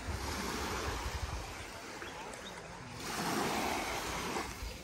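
Small sea waves washing onto a sandy beach, swelling about three seconds in and easing off near the end.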